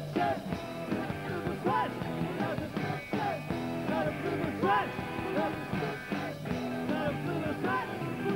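A rock band playing live: electric guitars, bass and keyboard with drums, and a voice singing over them.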